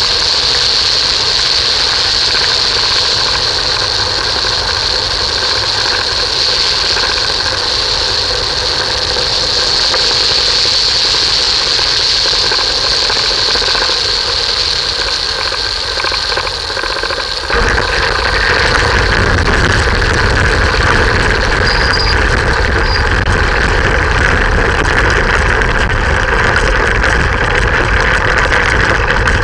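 Airflow rushing over a light aircraft gliding in with its engine out. About seventeen seconds in, a sudden louder low rumble begins as the wheels touch down and roll over the rough grass field.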